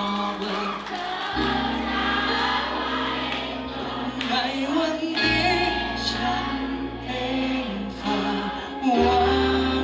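A man singing a Thai song live into a handheld microphone over amplified backing music, its sustained bass chord changing about every four seconds.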